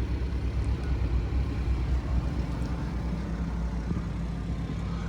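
Camper air conditioner running with a steady low hum.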